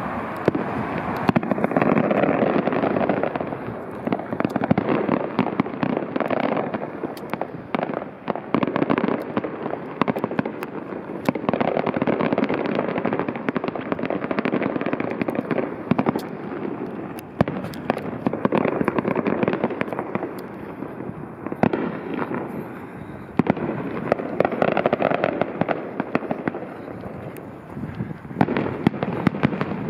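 Aerial fireworks bursting in a steady run: a rumbling boom every few seconds, with many sharp cracks and crackles in between.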